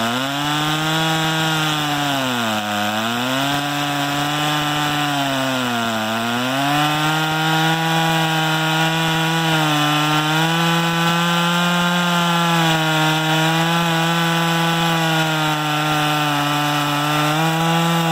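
Chainsaw in a homemade chainsaw mill ripping through a red pine log, the engine running at high revs under load. Its pitch sags and recovers three times in the first six seconds as the cut bogs it down, then holds steady.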